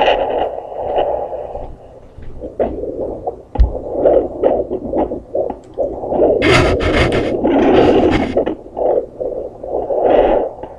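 Home fetal Doppler speaker giving a pulsing whoosh-whoosh heartbeat, about two to three beats a second, which she takes for the baby's heartbeat at around 143 beats a minute. Loud scratchy crackling from the probe breaks in during the second half.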